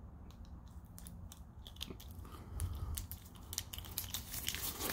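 Scattered small clicks and rustles of nitrile-gloved hands handling a metal socket and a removed rounded lug nut, growing busier from about halfway through. Near the end there is handling noise on the microphone as the camera is moved.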